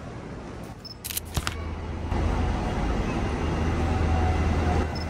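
Street traffic: a motor vehicle's engine hum sets in about two seconds in and stays steady and louder, after a few sharp clicks about a second in.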